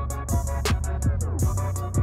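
Backing music with a beat: a deep steady bass line that comes in at the start, under regular drum hits and short falling pitch sweeps.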